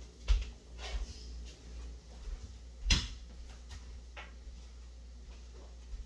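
Low steady rumble with a few scattered clicks and knocks, the loudest about three seconds in.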